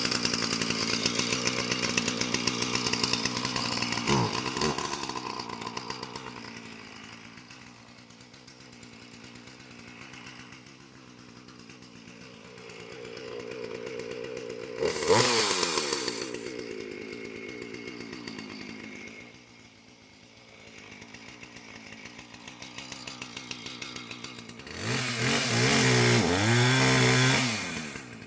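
Husqvarna Rancher two-stroke chainsaw cutting through a downed ash tree at full throttle, dropping back to idle for several seconds. It revs up sharply once midway, then runs at full throttle again for a few seconds near the end before falling back to idle.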